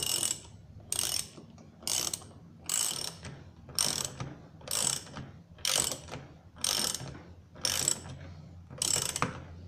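1/2-inch drive ratchet wrench clicking in short bursts about once a second, the pawl ratcheting on each return stroke of the handle as a hex-head screw is driven into wood.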